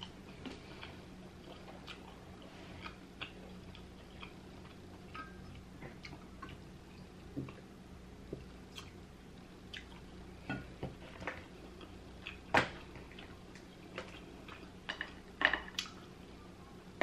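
Quiet table and eating sounds: scattered small clicks and taps from a glass being sipped from and king crab leg shells being handled, over a faint steady hum. One sharper click comes about three-quarters of the way in, with a few more near the end.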